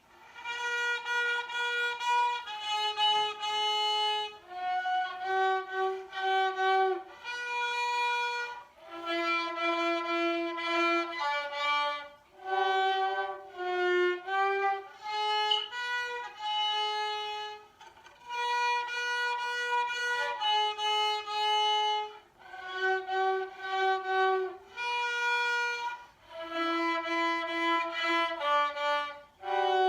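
Solo violin playing a slow melody one note at a time. Held notes come in phrases, with brief pauses between them.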